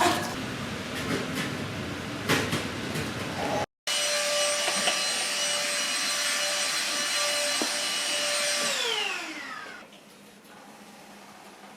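Before a cut, a rough noisy sound with a few knocks. After it, an electric appliance motor runs with a steady whine, then is switched off; its pitch falls as it winds down over about a second.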